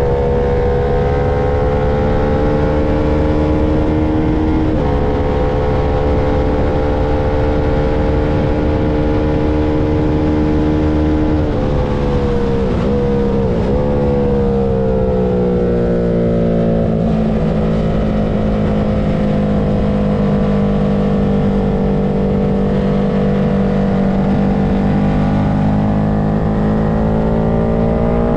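Engine of a track-day vehicle heard onboard at lapping speed, held at high revs with a brief dip as if for a gear change. About halfway through the revs waver and drop as it slows, stay low for several seconds, then climb again near the end as it accelerates. A steady rushing noise runs underneath.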